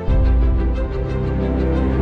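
Background music with steady held notes; a deep bass comes in just after it begins and the music gets louder.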